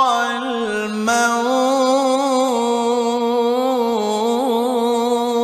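A man's voice in melodic Qur'an recitation in maqam Jiharkah, drawing out one long held, ornamented note within the phrase 'hadhara al-mawt', with a brief break about a second in and small turns in the pitch.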